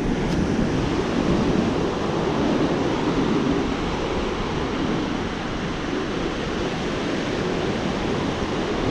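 Surf on an ocean beach: a steady wash of breaking waves, with wind on the microphone.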